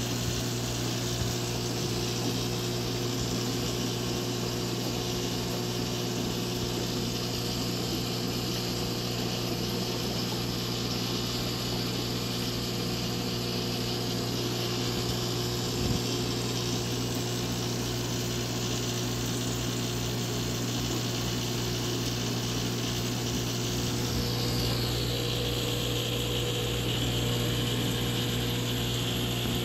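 Aquarium pump and filter running: a steady electric hum with a hiss above it. About 25 seconds in, the hiss shifts lower in pitch.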